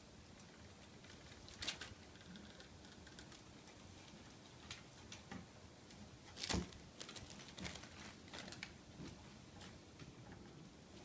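Ocicat kittens moving and playing: faint scattered taps and patters, with two louder knocks, one about two seconds in and one past the middle.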